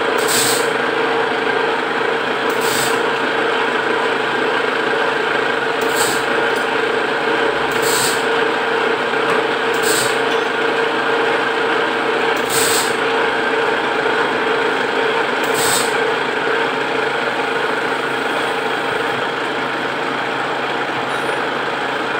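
Lotus metal lathe running steadily with a constant hum, a long metal tube turning in its chuck. Short, high, hiss-like bursts come every two to three seconds and stop about sixteen seconds in.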